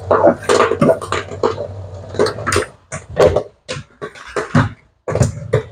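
Popcorn kernels popping in the pot of a gas-fired popcorn machine: irregular sharp pops and cracks, at first over a low steady hum that stops about halfway through, then more scattered pops as the stirrer arm is lifted out of the pot.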